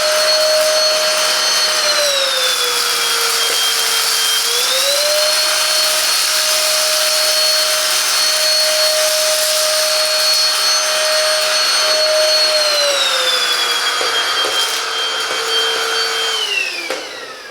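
Silvercrest cordless cyclone handheld vacuum cleaner running: a steady motor whine over rushing air. The pitch drops about two seconds in, climbs back a couple of seconds later, and drops again, before the motor spins down and stops near the end.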